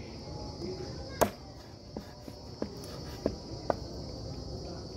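Large knife chopping raw mongoose meat on a wooden chopping block: five sharp knocks at uneven intervals, the first, about a second in, the loudest. A steady high-pitched insect drone runs underneath.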